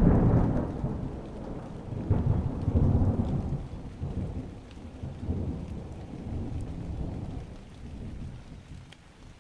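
A clap of thunder followed by a deep rolling rumble that swells again about two seconds in and slowly dies away.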